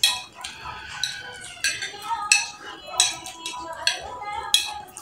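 Metal spoons clinking and scraping against dinner plates as two people eat rice quickly, with about seven sharp clinks spread through the few seconds.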